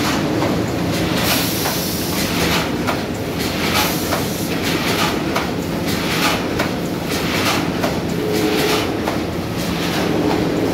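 Automatic flat-bed die-cutting machine for corrugated cardboard running: a steady mechanical din with a sharp, rhythmic clack about twice a second as it cycles.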